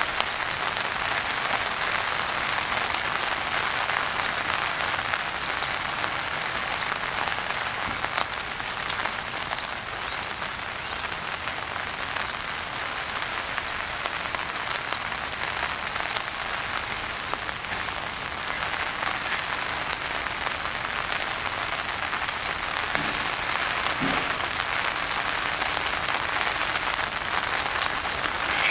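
Steady rain falling on a pond, an even hiss that holds at one level throughout.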